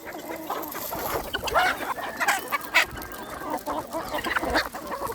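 A flock of chickens clucking and calling, many short overlapping calls with scattered sharp clicks.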